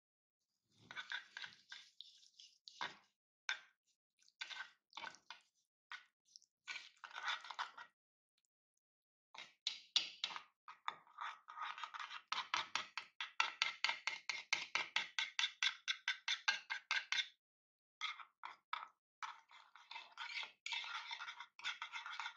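Small wire whisk stirring a thick, creamy dressing in a wooden bowl, scraping against the bowl. The strokes are slow and separate at first. After a short pause comes a long run of fast, even whisking strokes, then a brief break, then fast strokes again.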